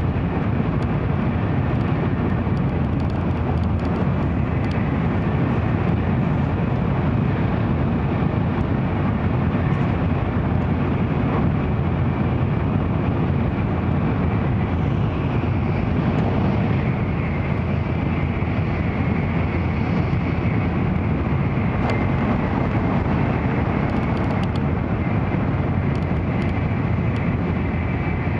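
Steady running noise of an N700-series Shinkansen heard from inside a passenger car: an even, low rumble with no change in level, and faint clicks now and then.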